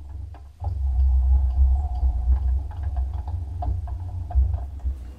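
Hands working the carriage handwheel of a Precision Matthews PM1236T lathe: a low rumble with scattered light clicks. The rumble swells about half a second in and cuts off suddenly at the end.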